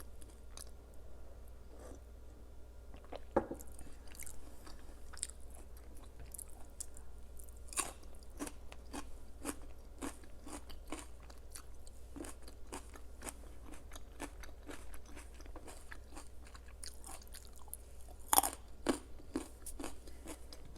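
Close-miked chewing of crunchy food: irregular crackly crunches with mouth sounds, and a few louder bites about three and eight seconds in and a cluster near the end.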